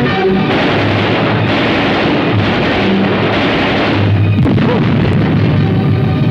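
War-film soundtrack: sustained background music, with a long rush of explosion noise over it from about half a second in until about four and a half seconds in.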